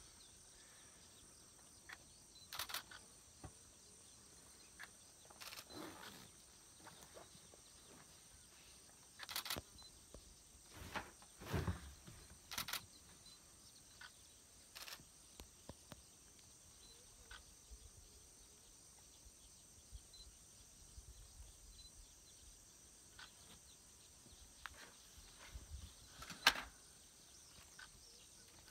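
Faint outdoor ambience: a steady high hiss with scattered short knocks, clicks and rustles, the loudest about eleven seconds in and again near the end.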